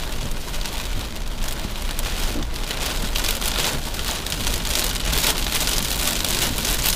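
Rain pattering on a moving car's windshield and body, a dense crackle of drops that grows heavier about three seconds in, over the low steady rumble of the car on the road.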